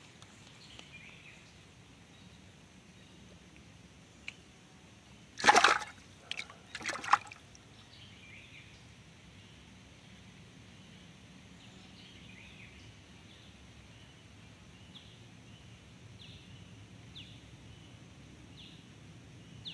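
Quiet outdoor background at a pond bank, with three loud, brief noises in quick succession about five and a half seconds in, then faint high chirps repeating about once a second.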